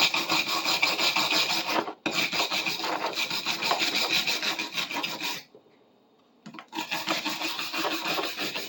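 Steady rasping and scraping on the bar clamp's handle as old foam and tape residue are worked off, in three long stretches with a brief break about two seconds in and a gap of about a second just past the middle.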